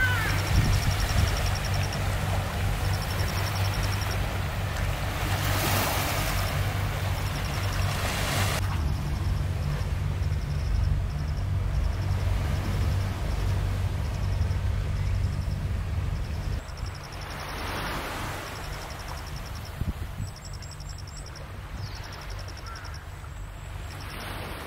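Seaside ambience: a steady low rumble under the wash of surf and wind, swelling into a louder rush twice. Short high chirping trills repeat every second or two, and the rumble eases about two-thirds of the way through.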